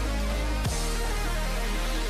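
Electronic background music with a heavy, sustained bass and a sharp downward sweep about two-thirds of a second in.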